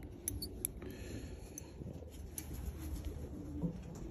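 Pigeons cooing softly, a low wavering hum throughout, with a few short light clicks in the first two seconds from small scissors snipping at a pigeon's crest feathers.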